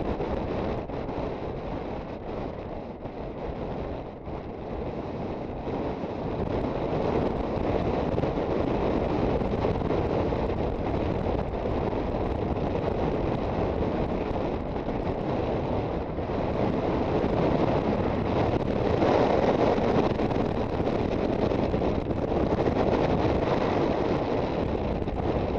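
Wind rushing over the microphone of a moving Aprilia Sportcity Cube 250 scooter, a steady rushing noise with the scooter's running and road noise buried beneath it. It swells louder about three-quarters of the way through.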